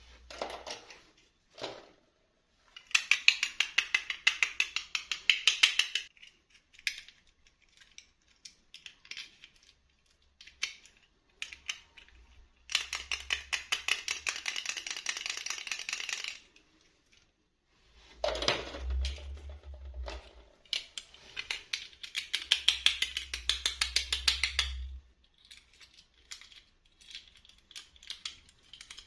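Small plastic packaging and pieces being handled, making rapid clicking and rattling in three bursts of a few seconds each, with scattered single clicks between.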